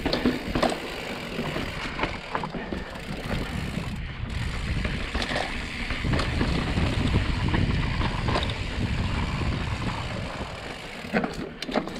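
Wind buffeting a GoPro's microphone as a Specialized Status mountain bike runs fast downhill over slab rock, with tyre noise and scattered clicks and rattles from the bike, a cluster of them near the end.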